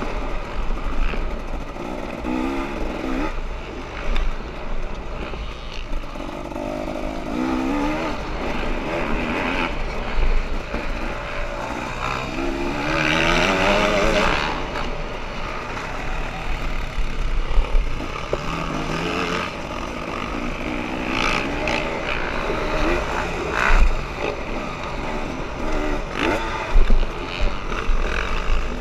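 Dirt bike engine revving up and down over and over as it is ridden, its pitch rising and falling with each burst of throttle, with wind buffeting the on-board microphone. The engine is loudest about halfway through.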